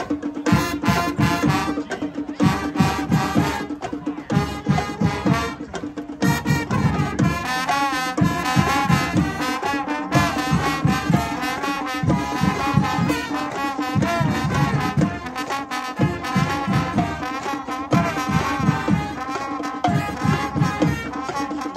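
High school marching band hornline of trumpets, trombones and a sousaphone playing a loud, upbeat brass tune, with a steady beat underneath.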